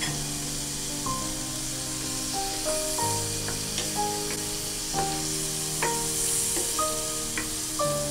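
Beef steak sizzling in melted butter in a frying pan, with background music playing over it.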